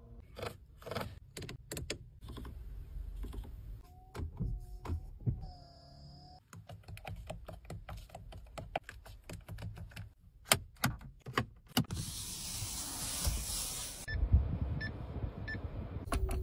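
Clicks from buttons and switches being pressed on a car's controls, with a few short electronic tones. About twelve seconds in there is a two-second rushing hiss.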